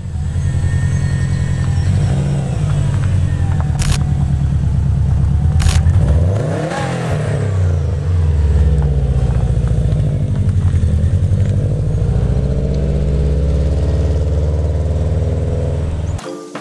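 Subaru Impreza's flat-four engine running steadily, revved up and back down once about six to seven seconds in. Two sharp clicks come near four and six seconds, and the engine sound cuts off just before the end.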